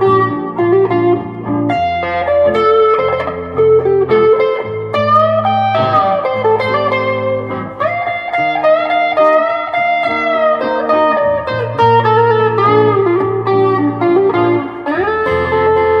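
Vintage V100 Les Paul-style electric guitar through a Fender Mustang GTX100 amp, playing blues-rock lead lines with string bends over a looped rhythm-guitar backing. A long arching bend comes about two-thirds of the way through, and a rising slide near the end.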